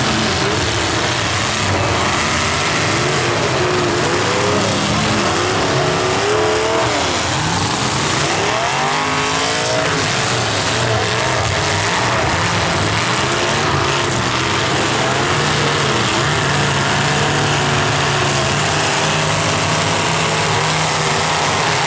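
Several full-size demolition derby cars' engines revving together, many overlapping pitches rising and falling over a loud, steady racket of motors and exhaust, settling into a steadier drone in the second half.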